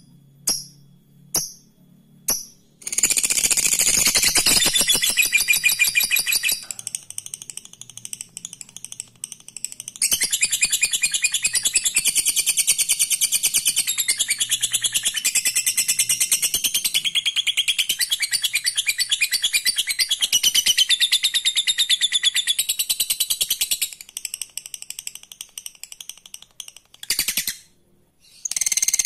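Lovebird giving its long 'ngekek' chatter: very rapid, high-pitched trilling in long unbroken runs. It opens with a few separate sharp chirps, then a run of about three seconds begins about three seconds in, and a longer run of about fourteen seconds follows. Looser, scattered pulses come between the runs and near the end.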